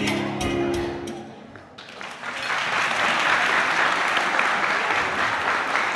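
Latin dance music playing and fading out about a second and a half in, then an audience applauding from about two seconds in and carrying on steadily.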